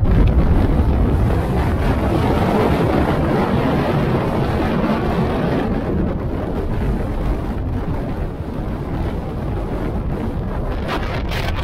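Steady wind buffeting the microphone of a camera held out the side window of a moving Jeep Wrangler, with a heavy low rumble of the vehicle on the road underneath.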